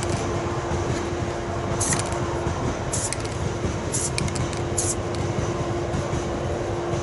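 Four short squirts from an aerosol spray paint can, about a second apart starting around two seconds in, lightly dusting a plastic jerry can with weathering paint. Under them runs a steady background rumble with a faint steady hum.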